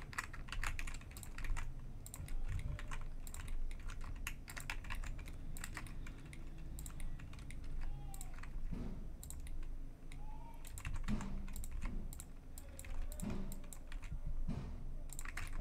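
Computer keyboard keys and mouse buttons clicking in short, irregular runs as shortcuts are entered, over a faint low room hum.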